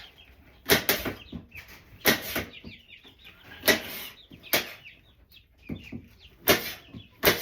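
A knife chopping produce on a cutting board: about seven sharp chops at irregular intervals, with baby chicks cheeping in the background.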